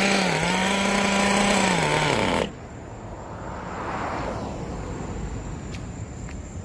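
Small engine running at high revs, its pitch dipping briefly, then winding down and cutting off about two and a half seconds in; at this stage of tuning its mixture still runs a little rich. After it stops there is faint hiss that swells and fades, with a few light clicks.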